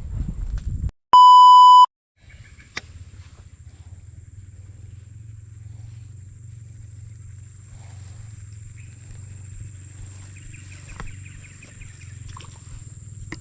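A loud electronic beep, one pure steady tone lasting under a second, about a second in. After it comes a steady low rumble with a few faint clicks.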